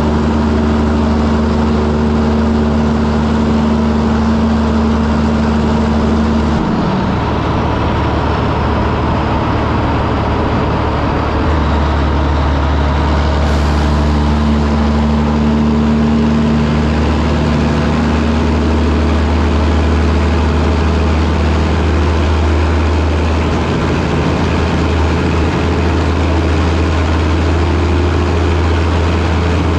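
Peterbilt cabover semi truck's Caterpillar diesel engine running steadily under way, with road noise. Its low note breaks and shifts about a quarter of the way in and again near the middle.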